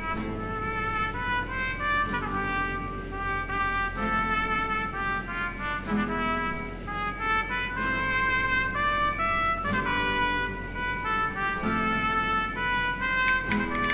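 Background music led by trumpet and brass, with held notes and a regular beat.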